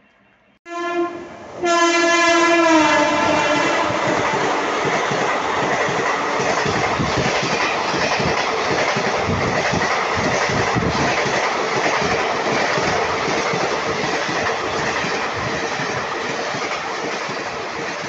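Train horn sounding twice, the second blast longer and falling in pitch, then a passenger train rushing through the station at speed, its wheels clattering over the rail joints in a steady rhythm.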